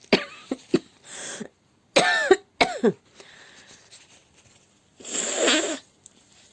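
A woman with a cold coughing: a run of short, sharp coughs, then another pair about two seconds in, and a longer, breathy cough about five seconds in.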